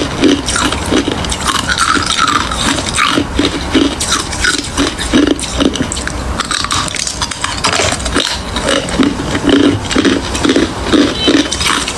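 A person chewing crushed ice close to the microphone: a steady run of loud crunches, about two or three a second.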